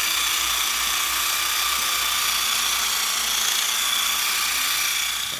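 Handheld percussion massage gun running against the thigh muscle, a steady high-pitched motor buzz.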